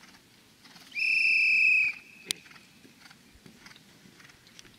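A whistle blown once: a steady, loud high note lasting about a second, starting about a second in.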